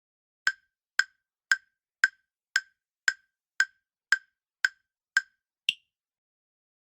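Countdown timer ticking sound effect: ten short, sharp ticks about two a second, ending with one final tick of a different, higher pitch.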